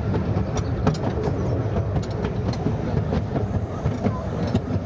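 Narrow-gauge railway carriage running along the track, heard from on board: a steady low rumble of the wheels with frequent sharp clicks and clatter from the rails.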